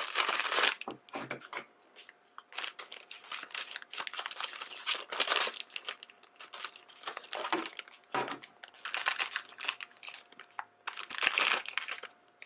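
A plastic blind-bag packet being torn open and its contents pulled out, crinkling in repeated bursts, loudest at the start, midway and near the end.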